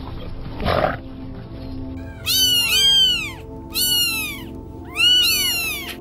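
Three bursts of high-pitched mewing animal calls, each made of several overlapping calls that rise and fall in pitch, over soft background music. A short low call comes about a second in.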